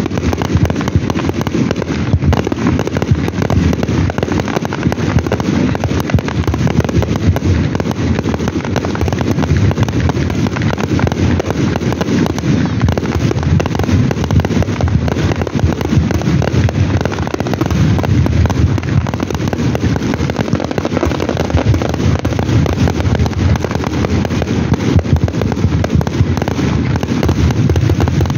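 Fireworks display: aerial shells bursting in a dense, unbroken barrage of bangs with no pauses between them.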